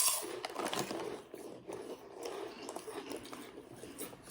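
Crunching and chewing of crisp corn snack chips, a string of short irregular crunches, with a faint murmur under them.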